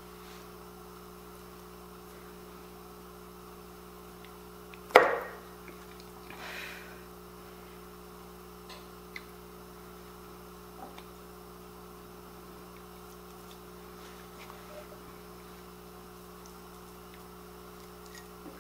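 Steady low hum with one sharp glass clink about five seconds in and a few faint taps and ticks after, as pieces of seared round steak are packed by hand into glass canning jars.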